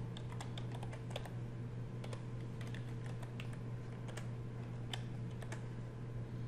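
Typing on a computer keyboard: a run of light keystroke clicks at an uneven pace, over a steady low hum.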